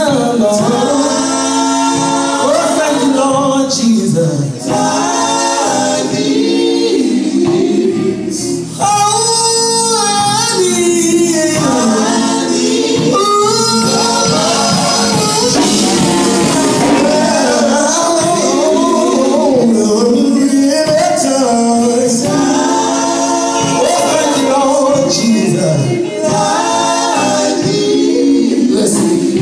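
Men's gospel vocal group singing live, a lead singer on a microphone with the other voices behind him.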